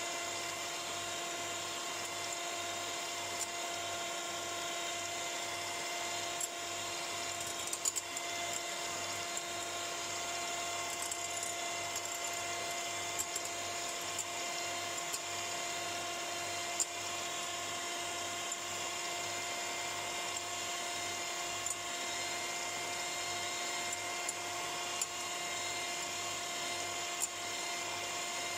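Electric hand mixer running at a steady speed, its twin beaters whipping egg whites into meringue in a glass bowl. The motor makes a constant whine, with a few sharp clicks scattered through it.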